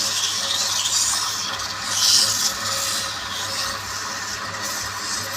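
Wood lathe running with a steady hum while a tool scrapes against the spinning wood, with a louder surge about two seconds in.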